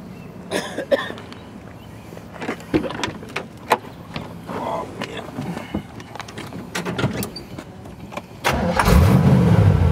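A few clicks and knocks, then, about a second before the end, the 1968 Corvette's 327 small-block V8 (350 hp) starts and settles into a loud, steady rumble through its chambered dual exhaust.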